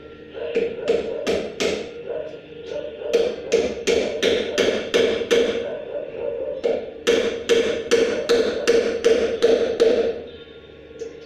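Hammer blows on the wooden frame of a table stand being assembled, in three runs of quick strikes, about three a second, each blow ringing briefly.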